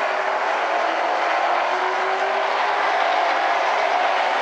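Street stock race cars running at speed around the oval, a loud, steady blend of engine noise from the field.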